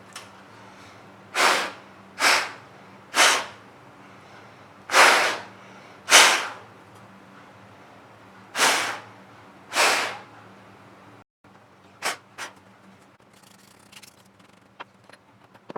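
Seven short hissing blasts of air, as from a compressed-air duster blowing dust out of the console, each about half a second long, followed near the end by two sharp clicks and a few light ticks.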